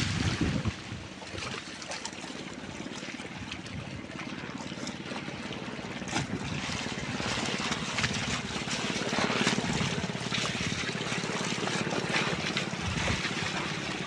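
A person swimming in seawater: a heavy splash in the first second, then continuous irregular sloshing and small splashes of water as he strokes through it and reaches the rocks.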